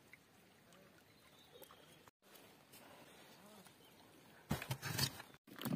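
Faint outdoor background, then near the end about a second of rustling and clattering as a bucket full of river snails is carried.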